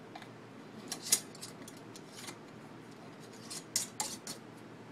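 Metal screw bands being hand-tightened onto glass canning jars: short scrapes and clicks of the metal rings on the jar threads and lids, a few scattered through, the loudest about a second in and again near four seconds.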